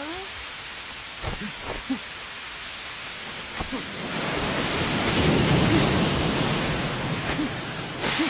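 Heavy monsoon rain pouring, with a few short thumps early on. About four seconds in, a loud low rumble swells up and slowly eases away.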